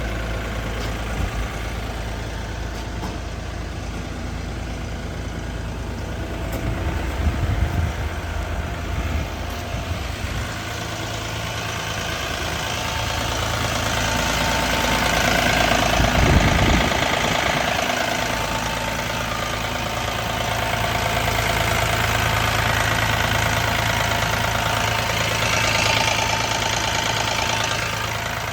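JCB 50Z-2 mini excavator's diesel engine running, mostly at a steady idle-like note, swelling in level and pitch about halfway through and again near the end as it works under load. There is a short patch of knocking clatter about seven seconds in.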